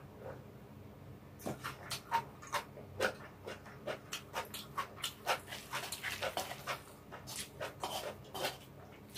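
Chopsticks stirring and lifting stir-fried ramen with bean sprouts in a shallow pan: a run of irregular small clicks and sticky scrapes against the pan, starting about a second and a half in.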